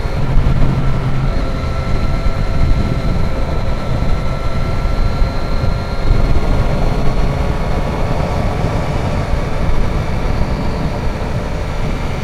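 Steady wind noise rushing over a rider's microphone, with the drone of a Triumph Street Triple's three-cylinder motorcycle engine running underneath.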